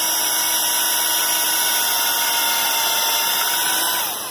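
Cordless drill running at steady full speed, boring a dowel hole into the wooden kayak frame; its motor whine holds one even pitch and winds down about four seconds in.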